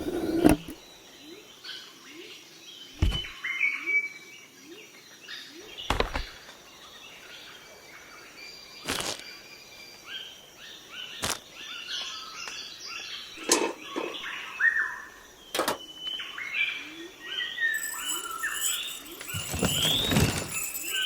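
Many small birds chirping in short rising calls, which grow busier in the second half. Sharp knocks come every two to three seconds.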